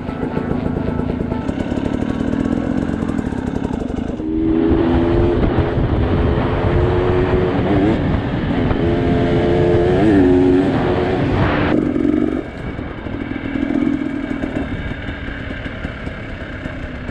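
Enduro motorcycle engine running under way, heard from on the bike. About four seconds in it gets louder for some eight seconds, its pitch rising and dipping with the throttle, then drops back to a steadier run.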